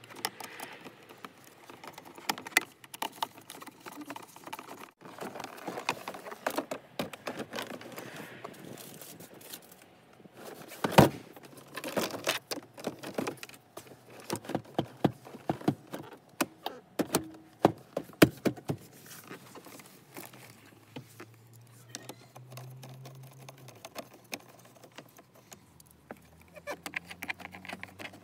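Hard plastic centre-console trim of a 2012 Kia Optima being handled and worked by hand: an irregular run of clicks, knocks and light rattles, with one loud click about eleven seconds in.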